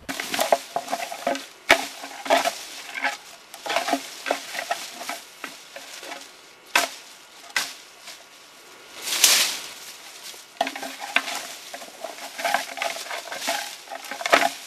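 A moose scapula raked through dense brush, scraping and crackling against the branches in irregular strokes with a few sharp cracks. It imitates a bull moose raking bushes with its antlers, a call used to challenge or attract moose.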